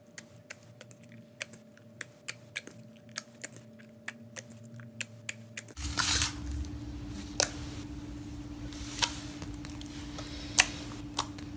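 White homemade slime being kneaded and squeezed by hand, giving off quick wet clicks and pops, about three a second. About six seconds in the sound changes: a steady low hum underneath and only a few louder, separate pops as the slime is pressed and folded flat.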